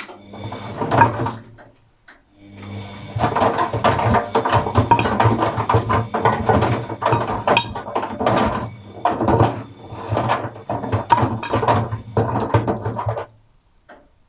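Atlant 50U101 washing machine drum turning during an express wash, with a steady motor hum and frequent knocks and clatter from the rollers and brushes inside. It runs about two seconds, pauses briefly, then turns again for about ten seconds before stopping.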